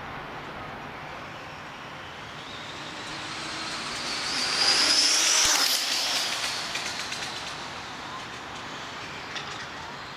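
Traxxas Slash 4x4 RC car making a high-speed pass. The high whine of its brushless motor and the tyre noise build up, peak loudest about five seconds in, drop in pitch as it goes by, then fade away.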